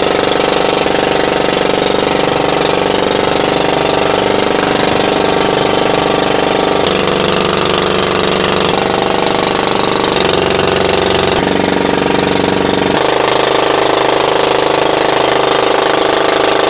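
Engine of a motorized outrigger fishing boat (bangka) running steadily under way, with a thudding, knocking beat. Its note changes in small steps several times.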